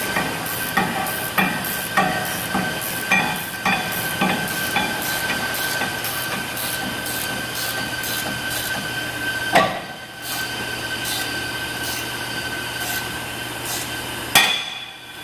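Tools clicking and clanking on rear disc-brake hardware over a steady hiss with a faint low hum. The clicks come at a fairly even pace at first, then a sharp knock, and a single loud bang near the end.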